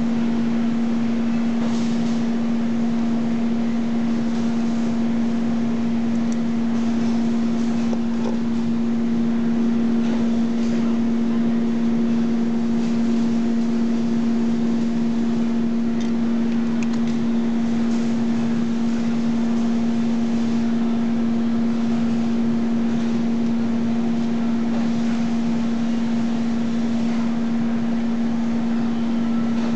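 Steady machine hum at one constant pitch over a hiss of workshop noise, with a few faint clicks.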